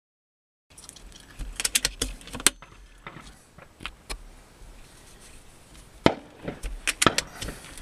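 Sharp clicks and knocks of handling an air rifle and its scope-mounted camera. They come in two clusters, one about a second and a half in and another about six seconds in.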